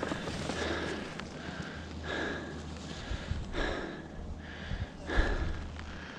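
Skis scraping and swishing through chopped-up, bumpy snow in turns, a swish about every second and a half over a steady low rumble.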